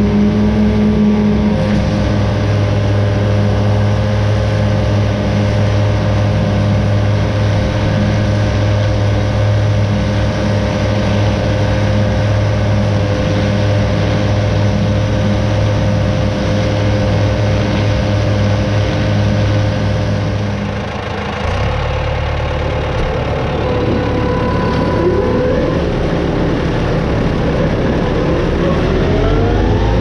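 Claas Arion 530 tractor and its disc mowers running steadily while cutting heavy grass. About two-thirds of the way in, the sound drops to a lower drone, and sliding pitches rise near the end.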